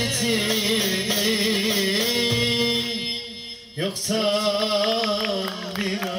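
Live dance music from a small band: a wavering melody line over a held lower tone. It drops away briefly a little past three seconds in, then picks up again.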